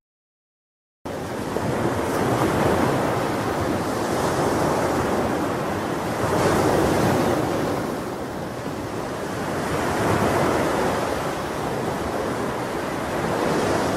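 Silence, then about a second in, sea surf rushing in, swelling and falling back roughly every three to four seconds.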